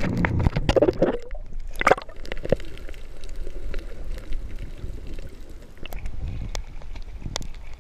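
Water splashing at the surface, then, after about a second, a muffled underwater rush and bubbling with scattered clicks, heard through a camera under water as a scuba diver plunges in.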